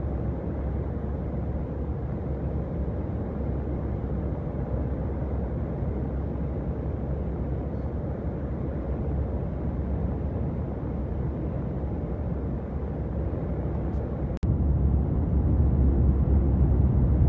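Steady low rumble inside a lorry's cab cruising on a motorway: engine and tyre noise. A bit past three-quarters of the way through it cuts out for an instant and comes back louder.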